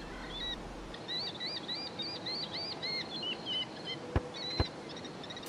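Outdoor ambience with a bird chirping in a quick run of rising-and-falling chirps over a faint steady hiss. About four seconds in come two short low thumps in quick succession.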